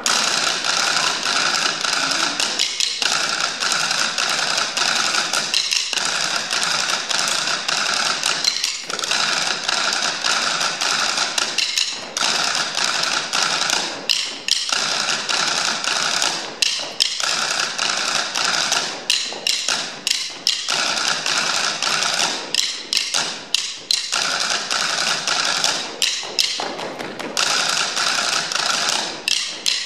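Ensemble table percussion: four players striking wooden tabletops with drumsticks in fast, continuous tapping, broken by short pauses every two to three seconds.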